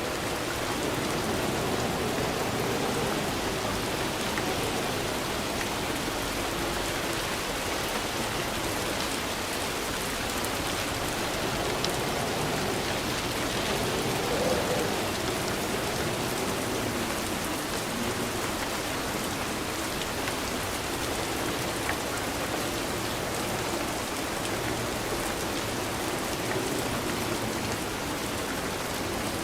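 Steady rainfall, with drops pattering on a surface.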